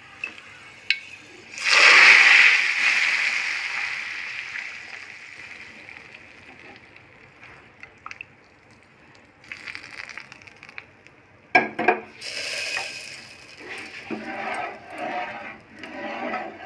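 Hot tempering oil poured into boiled sambar sizzles: a sudden loud hiss about a second and a half in that slowly dies away over several seconds. Later come a few sharp knocks and uneven rustling.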